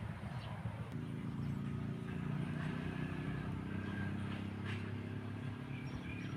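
A low, steady engine hum comes in about a second in and keeps running.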